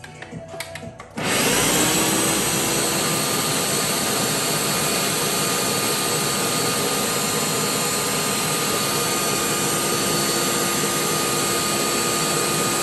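Ninja countertop blender puréeing a cooked tomato, pepper and onion salsa with broth. A few clicks from the controls, then about a second in the motor starts, spins up quickly and runs at a loud, steady whir.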